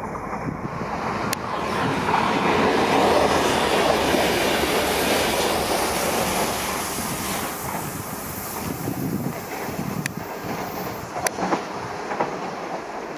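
Renfe regional passenger train passing close by at speed: a rushing rumble of wheels on rail that swells to a peak and then slowly fades, with a few sharp clicks.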